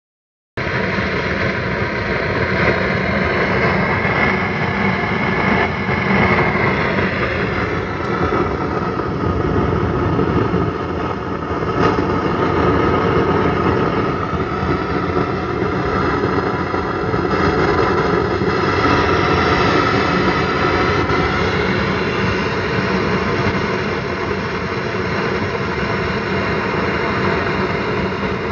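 Ampeg B2R solid-state bass amp giving out loud, steady static noise in place of the signal, starting abruptly about half a second in, with faint tones drifting up and down within it. It is the amp's fault after its signal cuts out, one that tightening the hardware and reseating the wires has not cured.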